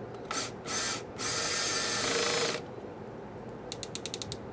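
Power drill/driver fitted with a 5/16 nut-driver socket, whirring in two short spurts and then a longer run of about a second and a half while backing out sheet-metal screws. Near the end comes a quick string of sharp clicks.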